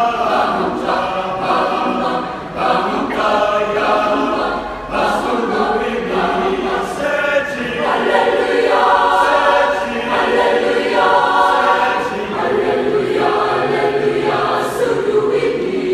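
Mixed choir of women's and men's voices singing a cappella in harmony, holding one chord after another.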